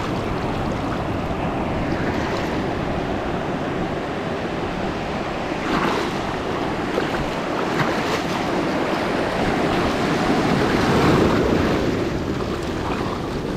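Shallow surf washing and foaming around the legs and hands in the water, a steady rush of water that swells louder near the end as a wave's wash comes through.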